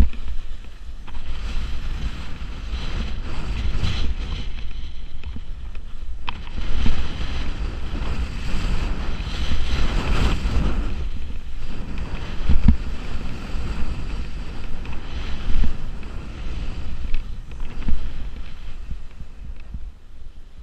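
Skis carving turns through wet spring slush, a scraping swish that surges with each turn every two to three seconds, over wind buffeting the camera microphone.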